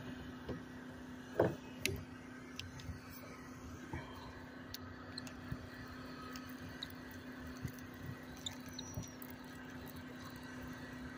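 Scattered light knocks and clicks of gear being handled aboard an inflatable kayak, the loudest about a second and a half in, over a steady low hum.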